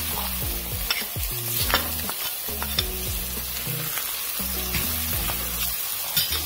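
Chopped onion, eggplant and tomato paste sizzling in hot oil in a pot while a wooden spoon stirs spices through them, with a steady hiss and scattered clicks and scrapes of the spoon against the pot.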